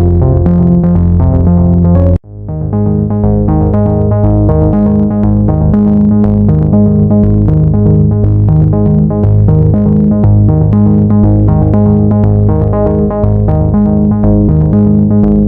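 Background music of synthesizer and keyboard with a steady beat. It breaks off sharply about two seconds in and starts again with a new section.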